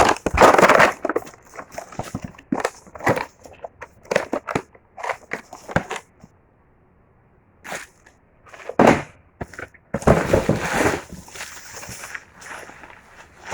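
Packaging being handled and opened: irregular crinkling and crunching with sharp clicks, pausing for about a second and a half midway before starting again.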